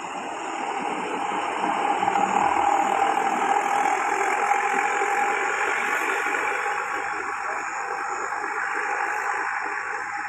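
Heavy road vehicle driving past: engine and road noise swelling over the first two or three seconds, then slowly fading.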